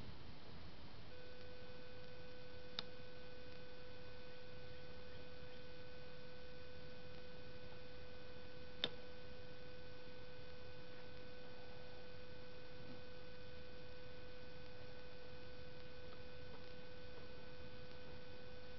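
Wire cutters snipping the wire of a metal cage trap: two sharp snaps, one about three seconds in and a louder one about nine seconds in. A steady high-pitched tone runs underneath from about a second in.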